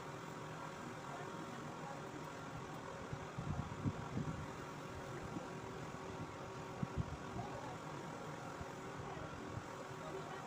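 A steady mechanical hum, with a few soft low knocks about three to four seconds in and again around seven seconds.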